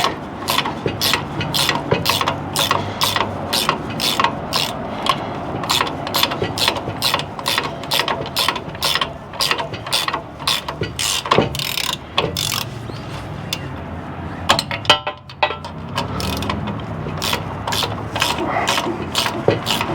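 Hand ratchet clicking steadily, about two to three clicks a second, as a nut is backed off, with a short pause about fifteen seconds in.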